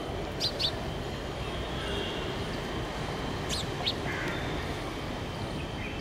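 House sparrow chirping: two pairs of short, sharp chirps, one pair near the start and another a little past the middle, over steady low background noise.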